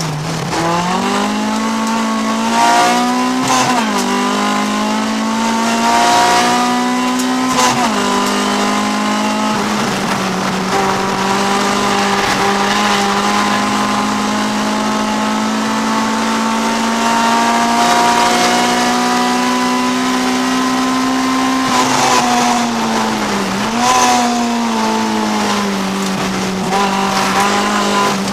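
Honda CRX race car's B20 VTEC four-cylinder engine at racing speed, heard from inside the cabin. Its pitch climbs steadily and then drops and rises again several times as it changes gear, with one long slow climb in a single gear through the middle.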